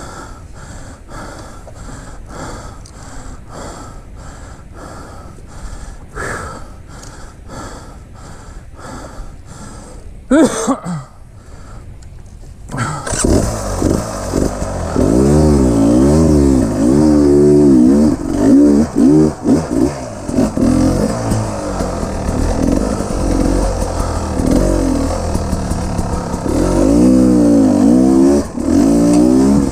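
Dirt-bike rider breathing hard at rest, about two breaths a second. About ten seconds in the dirt bike's engine starts with a short loud burst, then runs loud with the throttle revving up and down over and over as the bike climbs the rocky slope.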